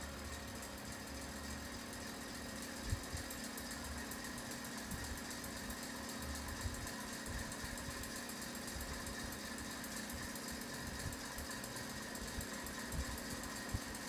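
Encon ceiling fan running at speed: a steady motor hum with an irregular low rumble underneath.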